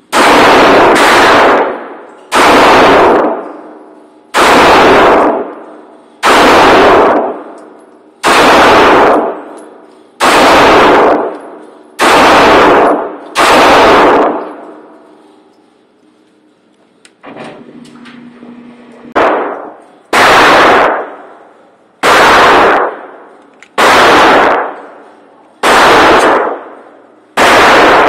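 Pistol shots fired one at a time, about fifteen in all, mostly about two seconds apart with a pause of some five seconds in the middle. Each shot overloads the recording and rings on in the echo of the indoor range.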